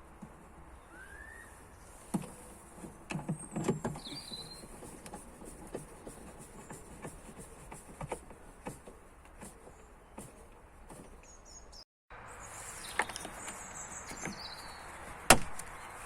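Scattered light clicks and knocks of hands working on the car, with a few bird chirps, then a single sharp loud click near the end.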